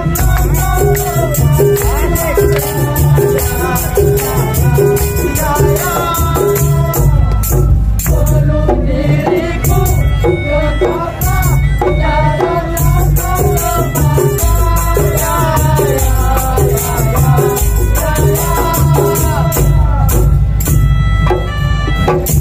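Madurese ul-daul (daul combo) percussion band playing loudly: a driving drum beat under a short note repeating about twice a second, busy rattling percussion on top, and a wavering, sliding melody line.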